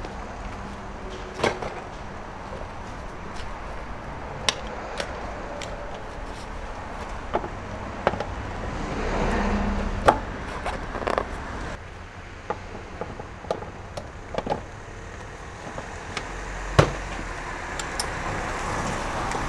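Irregular knocks and clacks, more than a dozen, over a steady low rumble that swells about halfway through and again near the end.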